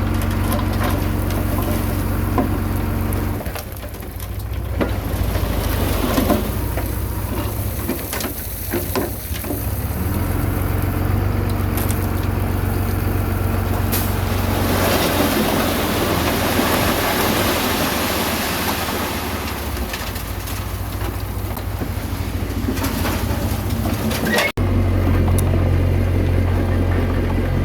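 Komatsu D21A bulldozer's diesel engine running under changing load as it works, with a noisier grinding stretch in the middle. The sound changes abruptly a few seconds before the end.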